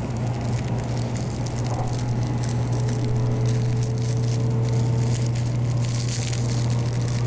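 Plastic onigiri wrapper crackling and crinkling as it is pulled open, over the steady low rumble of a Shinkansen bullet-train cabin.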